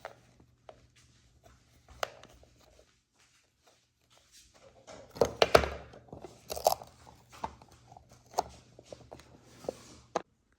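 Plastic toy parts, packaging and a cup being handled on a table: scattered knocks, clicks and crinkles, with a cluster of louder knocks about five to seven seconds in.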